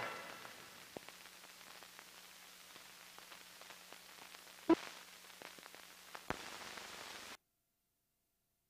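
Run-out of an old film soundtrack: the closing music dies away, leaving faint hiss and a low hum with scattered clicks and pops, one louder pop near the middle. About seven seconds in it cuts off suddenly to silence.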